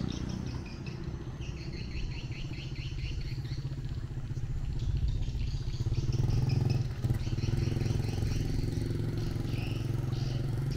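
A small engine running steadily, getting louder about five seconds in and easing off again around seven seconds, with birds chirping over it.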